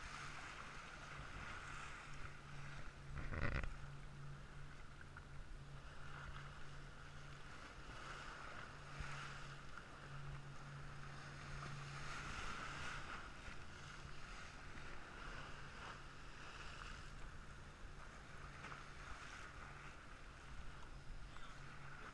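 Small lake waves lapping and splashing against a concrete seawall, with wind on the microphone and a steady low drone underneath. One sharp knock about three and a half seconds in.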